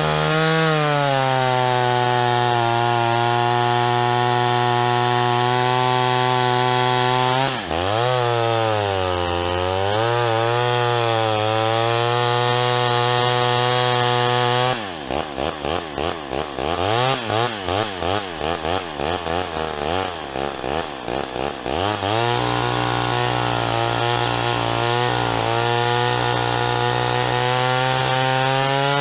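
Two-stroke engine of a Homelite Super XL Automatic chainsaw running at high revs as it cuts through a log, its carburettor high-speed needle just adjusted. The pitch dips and wavers under load. About halfway through it drops to a lower, uneven speed for several seconds, then revs back up and runs steady again.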